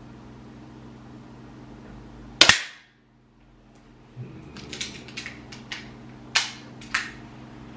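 A single sharp shot from an APS competition air pistol about two and a half seconds in. From about four seconds on come a run of small mechanical clicks and rattles as the pistol is handled, with two sharper clicks near the end.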